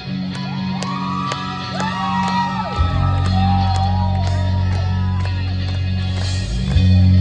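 Live rock band starting a song: drums keep an even beat, a low sustained bass and guitar chord comes in about three seconds in and gets louder near the end, with shouts and whoops from the audience over the opening.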